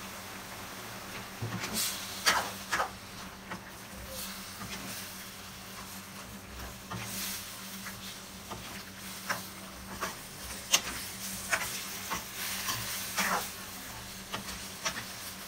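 Chop suey vegetables and meat sizzling in a nonstick frying pan while a spatula stirs them, with irregular scrapes and clicks of the spatula against the pan.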